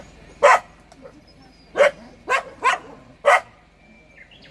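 A puppy barking: five short, sharp barks, one about half a second in and then four more in quick succession.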